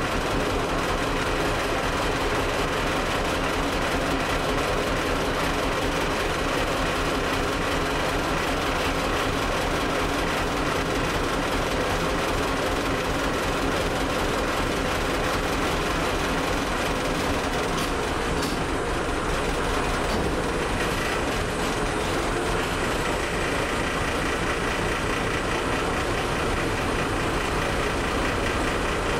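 Boat engine running steadily as the boat travels across the water.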